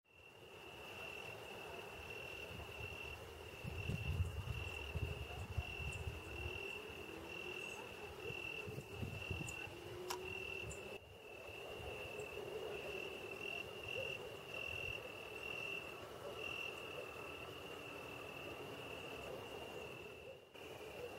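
Crickets chirping in a steady, high-pitched, pulsing trill, with a few low rumbles about four to six seconds in.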